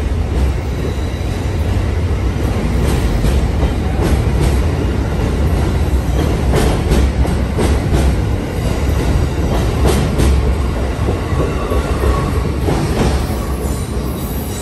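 Amtrak passenger train's stainless-steel cars passing close at speed: a steady rumble of wheels on rail, with sharp clicks as the wheels cross rail joints.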